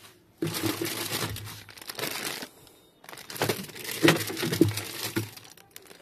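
Plastic packaging crinkling in two stretches of about two seconds each, as a plastic bag of manuals is handled and lifted out of a washing machine drum.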